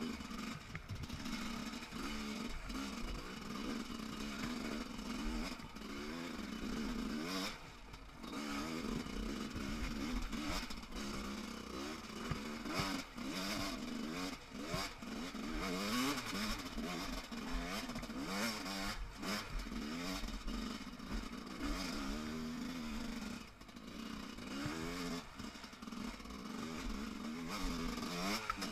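300cc two-stroke enduro motorcycle engine being ridden over rough trail, its revs rising and falling constantly with the throttle. The throttle is shut briefly about a third of the way in and again near the end.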